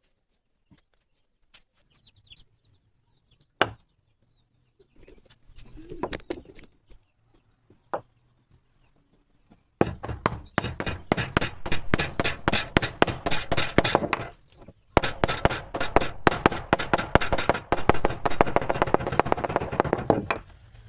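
Fast, repeated strokes of a tool working on wood, about eight to ten a second, in two runs of four to five seconds with a short break between; a few scattered knocks before them.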